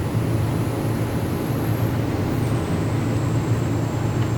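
Steady low machinery rumble with a faint high whine that steps down slightly in pitch about two and a half seconds in.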